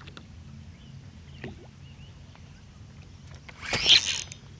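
Low steady hum of a bass boat's electric trolling motor holding position, with a sudden loud burst of noise lasting about half a second, starting about three and a half seconds in.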